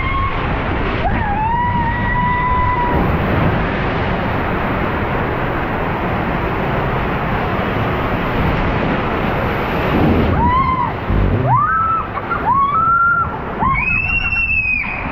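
Water rushing and spraying in an enclosed water slide tube as a rider shoots down it, loud and steady throughout. Over it a rider gives a high held cry about a second in, then several short whoops near the end, with a dull thump in between.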